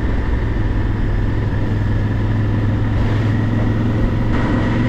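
Honda XL1000V Varadero's V-twin engine running at a steady road speed, a steady low hum under wind and road noise.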